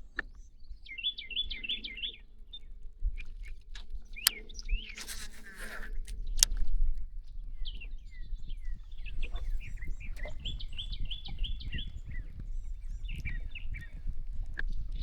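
Birds chirping in short repeated trills, one run about a second in and another about ten seconds in, with a few sharp clicks and a brief rush of noise midway.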